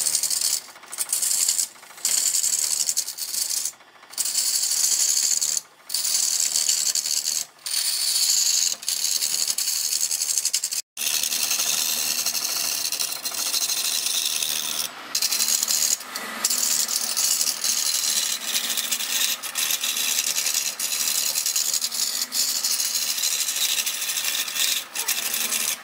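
Woodturning gouge cutting into a large spinning wooden blank on a lathe: a steady high hiss of shavings being torn off. It is broken by short pauses every second or two in the first half as the tool comes off the wood, and cuts out for an instant near the middle.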